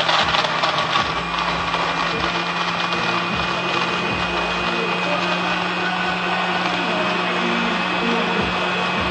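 Margaritaville frozen drink machine running steadily, its motor whirring with a constant hum as it grinds ice into a slush.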